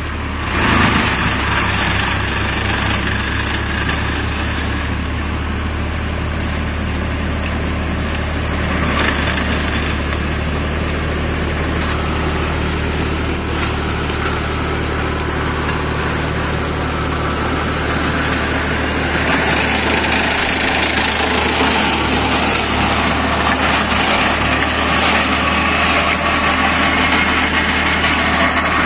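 Deutz D4006 tractor's air-cooled three-cylinder diesel running steadily under load, driving a PTO flail mulcher that shreds brush and undergrowth. The sound rises sharply about a second in and grows a little brighter later on.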